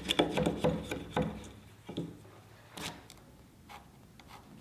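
Wide chisel held flat, paring the cheek of a wooden tenon: a run of quick scraping strokes in the first second and a half, then a few separate light taps and a faint room tone.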